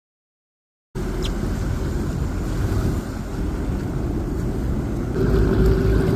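Silence for about a second, then a Sea-Doo personal watercraft running under way, its engine a steady drone mixed with wind on the microphone; the engine tone gets louder about five seconds in.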